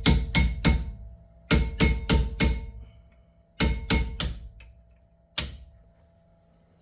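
Hammer tapping a pin punch to drive out the brake pad retaining pins of a Mercedes W221 S600 front caliper. Quick runs of four or five sharp metallic taps that ring on, three runs in a row, then one last single tap.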